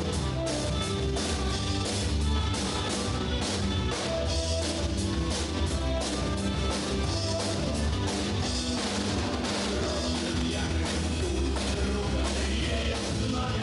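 Rock band playing a heavy rock number: a drum kit keeping a steady beat, with electric guitar and a heavy bass.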